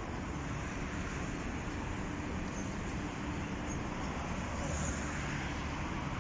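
Steady road traffic noise from cars on a city boulevard, a continuous wash with no single vehicle standing out.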